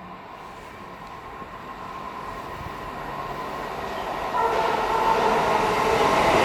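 A train approaching along the platform, growing steadily louder. About four seconds in, a whine of several steady high tones joins the running noise.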